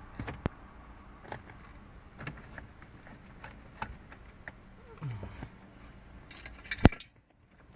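Scattered clicks and light clatter of hand tools and interior trim parts being handled during reassembly, with one sharp, loud click near the end.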